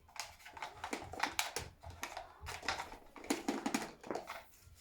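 Irregular light clicks and taps, several a second, with no motor running.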